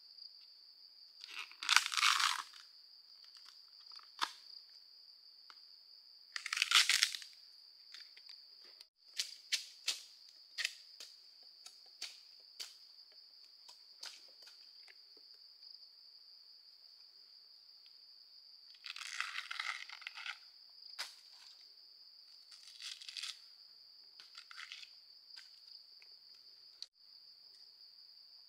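Steady, high-pitched insect chirring throughout. Brief crunchy, rustling bursts and scattered clicks come every few seconds, the loudest about two and seven seconds in.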